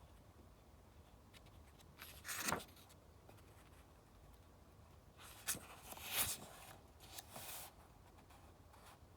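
Paper rustling as a book's pages are handled and turned: one short swish about two seconds in, then a longer run of several rustles a few seconds later.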